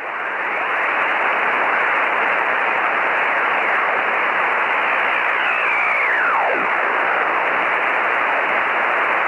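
Shortwave ham radio receiver static: a steady rushing hiss with the narrow, muffled sound of a single-sideband receiver, rising up in the first second. Faint whistles slide down in pitch a little past the middle, like carriers passing as the receiver is tuned across the band.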